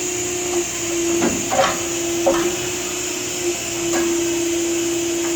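Modig Model 7200 Profileline 5-axis CNC machining center under power: a steady hum with a high hiss, and several short knocks in the first few seconds.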